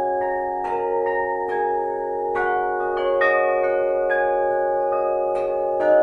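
Flat metal bell plates hanging in a frame, struck one after another about twice a second. Each strike leaves several long ringing tones that overlap into a dense, sustained wash of deep and high pitches.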